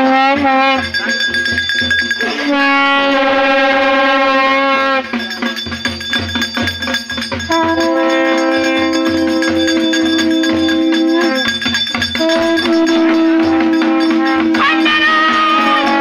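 Long brass processional horn blown in long held notes, each two to four seconds, stepping up in pitch, over a steady drumbeat. Near the end a higher, wavering note joins in.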